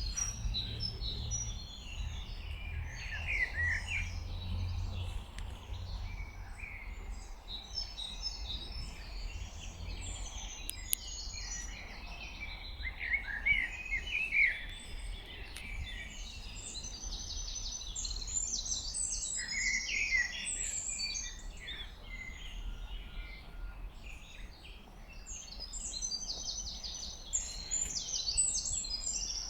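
Many songbirds singing and calling over one another in a dense spring chorus, over a steady low rumble.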